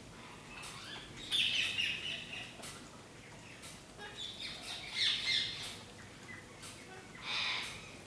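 Rose-ringed parakeets calling: harsh squawks and chirps in three bursts, loudest about a second and a half in and around five seconds, with a shorter burst past seven seconds.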